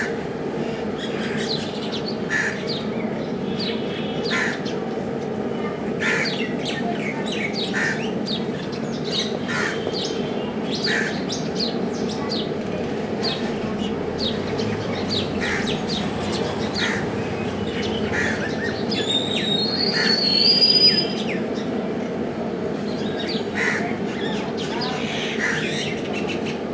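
Birds calling in short repeated calls, every second or two, over a steady low hum. About twenty seconds in, one louder high-pitched sound rises in pitch.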